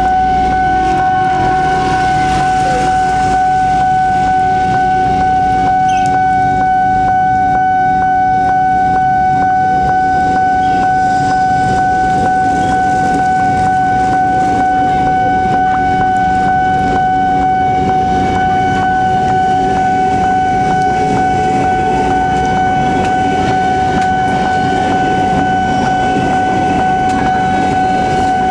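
A train passing slowly over a railway level crossing in heavy rain: a low rumble and the hiss of rain under a loud, steady, unbroken warning tone from the crossing alarm.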